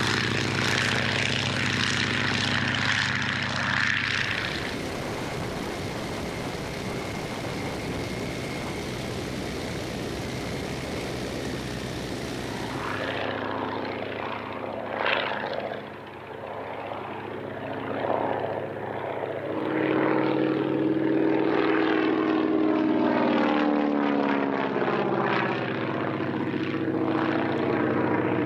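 Boeing-Stearman PT-17 biplane's radial engine and propeller droning in flight. The pitch slides up and down midway as the plane flies by, then the drone goes loud and steady, heard close up from the aircraft itself.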